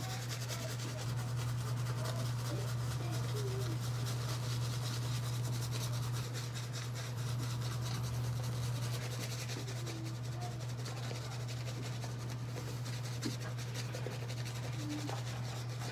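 Shaving brush working soap lather over a stubbled face: steady, scratchy swishing of wet bristles rubbing back and forth. Under it runs a steady low hum from an air conditioner.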